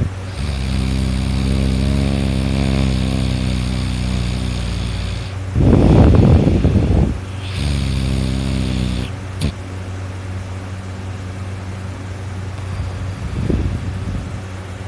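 A person snoring loudly in deep sleep. Long droning snores alternate with a harsh rattling snore about five and a half seconds in and a weaker one near the end, over a steady low hum.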